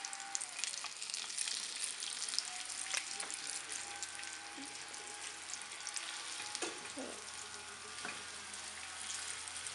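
Flour-dredged pork chops frying in hot olive oil in a stainless steel skillet: a steady sizzle full of fine crackling pops.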